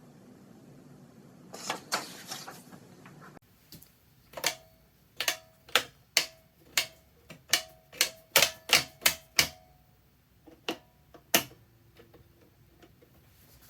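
A series of about fifteen sharp mechanical clicks at an uneven pace from handling the controls and parts of a Bernina 801 sewing machine, some with a short metallic ring after them. There is no motor running.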